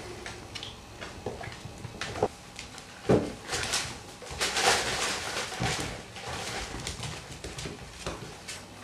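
Cavalier King Charles Spaniel puppies scuffling in play on a tile floor: claws clicking and scrabbling and plush toys being tugged, in irregular bursts that grow busier around the middle.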